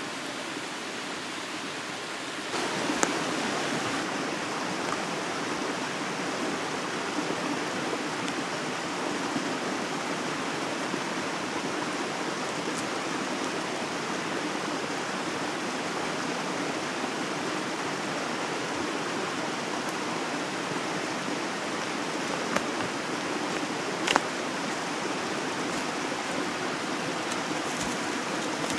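Steady rush of a mountain stream, a little louder from about two and a half seconds in, with a few sharp crackles from a wood campfire.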